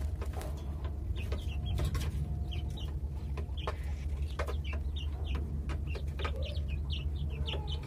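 Young white broiler chickens making short peeping calls and clucks, with scattered sharp clicks and a steady low hum underneath.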